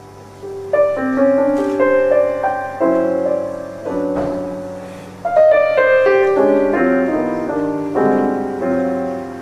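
Background piano music: notes and chords struck one after another, each fading away.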